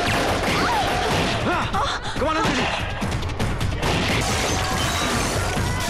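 Film shootout sound effects: pistol shots fired in rapid, uneven volleys, with crashing impacts, over a background music score.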